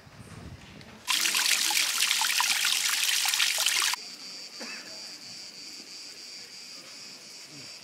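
Water trickling and splashing over rocks, loud, for about three seconds. It cuts off abruptly and gives way to a steady, high-pitched drone of insects.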